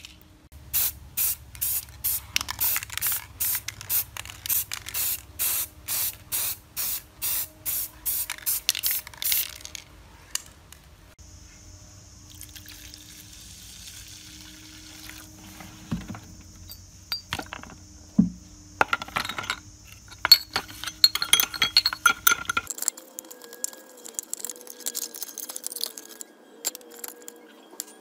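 Aerosol spray-paint can sprayed in short hissing bursts, about two a second, for the first ten seconds. Water then pours into a plastic bucket, followed by knocks and scraping.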